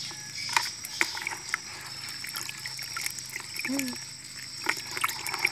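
Water splashing and dripping in a plastic bucket as a hand stirs through floating water plants and lifts out a caught climbing perch, with small sharp splashes and clicks throughout.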